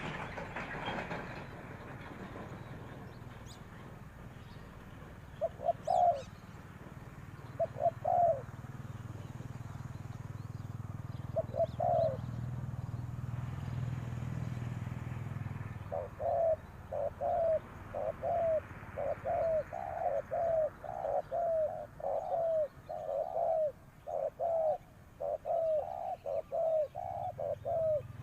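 Spotted dove cooing: a few separate short coos in the first half, then a fast, unbroken run of coos, about two a second, through the second half.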